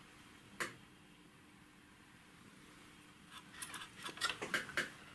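Small metal clicks and light clatter from the transponder's metal circuit-board assembly being handled in the fingers: one click about half a second in, then a quick run of clicks and rattles near the end.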